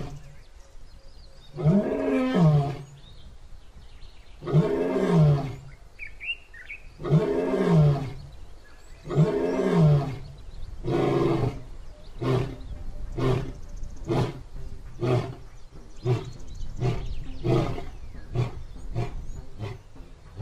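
Male white lion roaring: about five long roars two to three seconds apart, then a run of about ten shorter grunts at roughly one a second that grow quicker and fainter. A bird chirps briefly about six seconds in.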